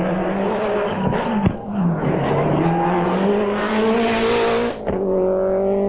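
A 1990s Group A rally car's engine on a tarmac stage. The revs dip twice early on, then climb steadily under hard acceleration and drop suddenly at an upshift just before the end. A brief high squeal comes just before the shift.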